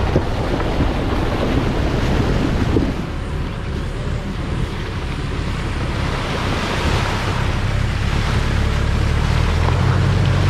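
A Mitsubishi Pajero 4WD driving through a shallow creek crossing: water surging and splashing around its wheels over a low engine rumble, growing louder in the second half.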